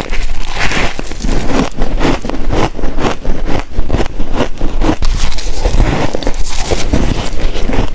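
Close-miked biting and chewing of soft freezer-frost chunks: rapid, irregular crunching and crackling, several crunches a second.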